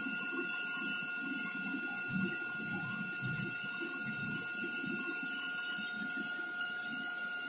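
Retrofit CNC milling machine running a part program: a steady high whine with evenly spaced overtones over an uneven, fluttering lower noise of the cut.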